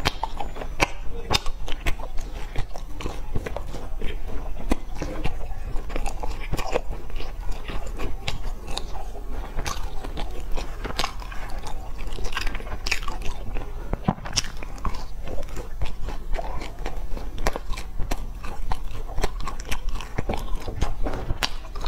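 Close-miked biting and chewing of crusty, sesame-topped baked pastry, with many sharp crackly crunches throughout.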